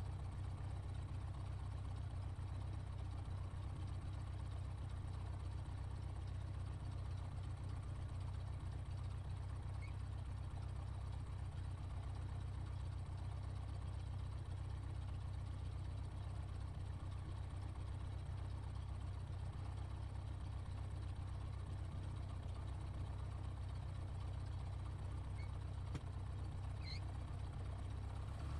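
Single-engine light aircraft's piston engine idling on the ground with its propeller turning slowly, a steady low rumble heard from inside the cockpit.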